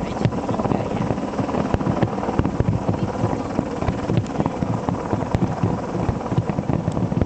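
Aerial fireworks going off in a dense, continuous barrage: many rapid, irregular bangs and crackles run together with a heavy low rumble.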